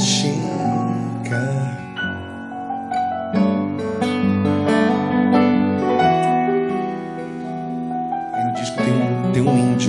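Live pop song: a male singer's voice over steady instrumental accompaniment. The voice sings at the start, drops out for an instrumental passage through the middle, and comes back in near the end.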